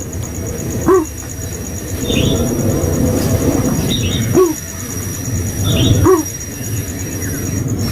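Coucal calls: a short, low, hooting note repeated four times, about every two seconds, with faint higher chirps in between.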